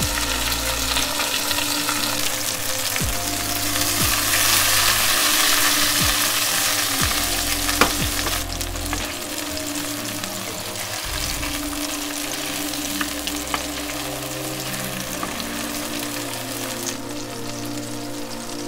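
Food frying and sizzling in a pan as it is stirred, louder about four to seven seconds in, with a sharp click about eight seconds in.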